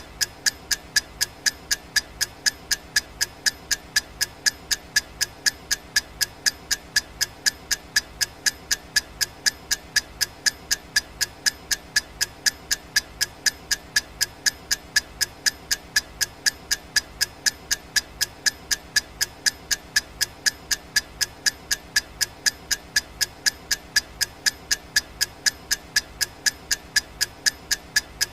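Clock ticking sound effect: even, sharp ticks at about two a second, steady throughout.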